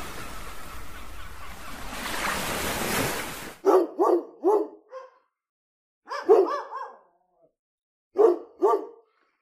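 Surf washing on a beach for the first three and a half seconds, then a dog barking in short groups: three quick barks, a longer run a couple of seconds later, and two more near the end.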